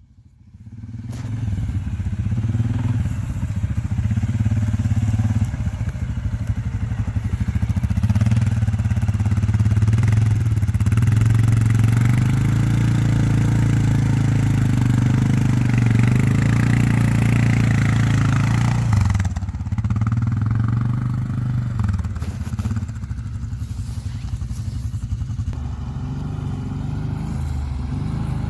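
ATV engine running under load, working harder from about ten seconds in, then easing off sharply at about nineteen seconds and settling lower near the end.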